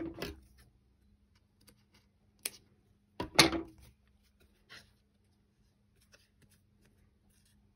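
A few short scissor cuts trimming a paper journal card, the loudest about three and a half seconds in, with light paper handling between them.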